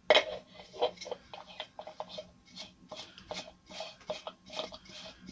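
White plastic gravity-feed paint cup being screwed onto the inlet of a Devilbiss FLG5 spray gun by hand. A sharp knock as the cup meets the gun, then a string of short rubbing clicks from the threads and handling, about three a second.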